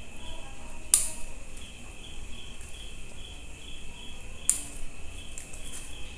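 Two sharp snips of bonsai scissors cutting twigs on a sandpaper tree (Streblus asper), about a second in and again some three and a half seconds later. Behind them a steady insect chirping pulses about three times a second.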